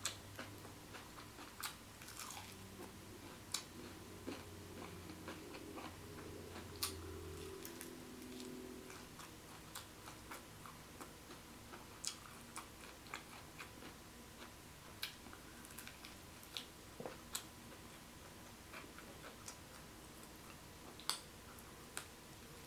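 Quiet chewing and biting on fried chicken, with sharp crisp clicks and small crunches scattered about once or twice a second.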